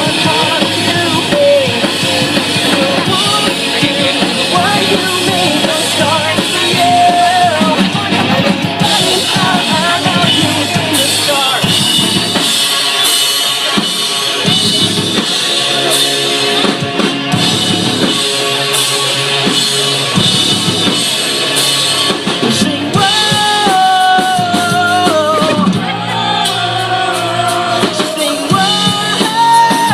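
Rock band playing a song, with drum kit and guitar under a melodic lead line.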